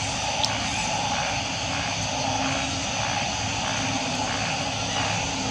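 Steady insect chorus droning in several pitch bands, one band pulsing about twice a second. A brief sharp click about half a second in.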